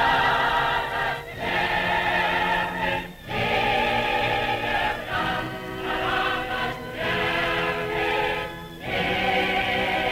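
Choir singing in phrases of about two seconds, each broken by a short pause. The sound is muffled, with no high treble, as on an old film soundtrack.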